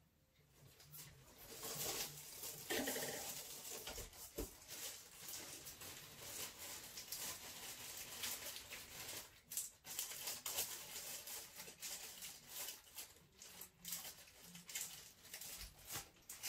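Rummaging through supplies: rustling with many small hard objects knocking and clattering.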